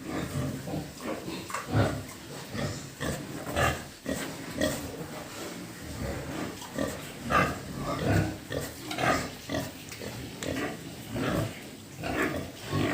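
Pigs grunting, with many short calls coming irregularly and overlapping.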